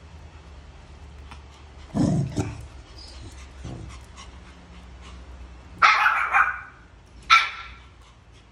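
Small Pomeranian dogs barking: a lower bark about two seconds in, then two louder, higher barks past the middle. Faint clicks of claws on the tiled floor come in between.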